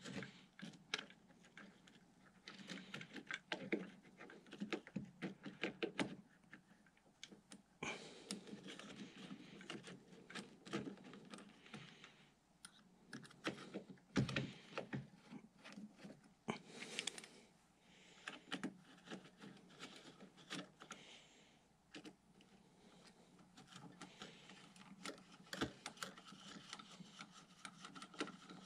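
Faint, irregular clicks, taps and light scrapes of small metal bolts, washers and a hand screwdriver being worked into an RC plane's motor mount.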